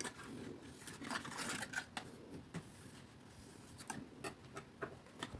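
Soft rustles, light scrapes and small clicks of cardstock being handled as a freshly glued paper box is pressed down along its tab from the inside.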